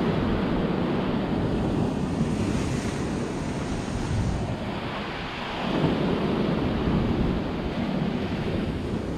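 Sea surf washing against a rocky shore, a steady rushing wash that eases off briefly and swells again about six seconds in.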